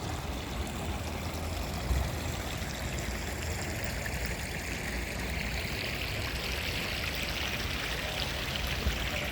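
Running water of a small stream: a steady rushing hiss that grows stronger about halfway through, with a low rumble underneath.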